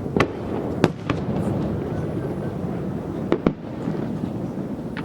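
Fireworks going off: about five sharp bangs at irregular intervals over a steady background rumble.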